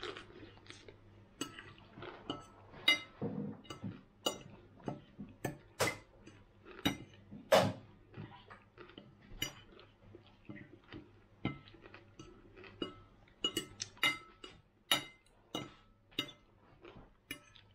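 Metal fork clinking and scraping against a ceramic dinner plate while eating, many irregular sharp clinks, some ringing briefly.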